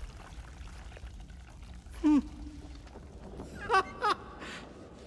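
Anime sound effect of blood pouring and trickling from a gunshot wound to the head, a low wet running noise. Short strained voice sounds break in about two seconds in and twice near four seconds.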